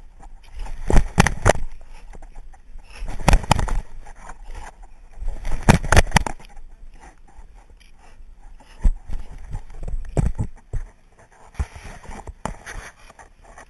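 Staffordshire bull terrier lunging and mouthing at a body-worn GoPro and the wearer's sleeve: loud bursts of scraping, rubbing and knocking on the camera, coming about every two to three seconds, then shorter sharper knocks in the second half.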